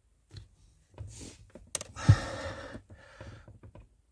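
Pliers clicking and knocking on the plastic hood-release handle of a Skoda Superb II as the hood-release cable is tugged, with a thump and a short huff of strained breath about two seconds in. The cable is binding and will hardly pull.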